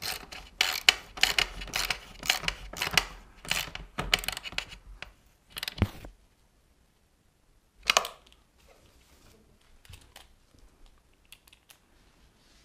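Hand ratchet on an extension clicking in quick runs as it drives a bolt into a motocross bike's rear subframe, for about five seconds. A sharp knock with a low thud follows near six seconds, another knock about two seconds later, then faint scattered ticks of the tool being handled.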